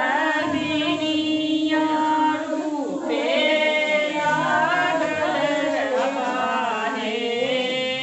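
A group of voices, mostly women's, singing a song together.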